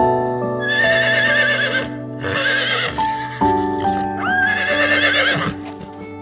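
A horse whinnying three times, each call with a quavering pitch, over background music.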